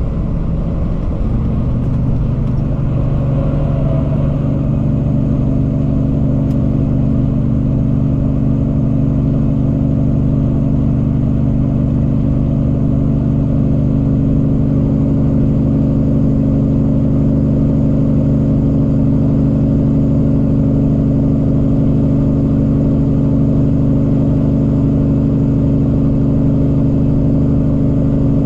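Cummins ISX diesel in a Peterbilt 379 truck running on the road, a steady drone. The engine note shifts about a second in, then holds steady.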